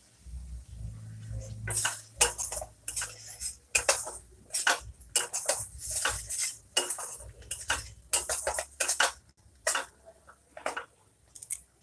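Flat steel spatula scraping and clanking against a stainless steel kadai in quick, irregular strokes while stirring a thick spice paste as it fries (the kashano step).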